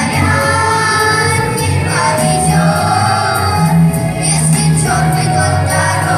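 Children's choir singing a song in unison with instrumental accompaniment carrying a steady bass line.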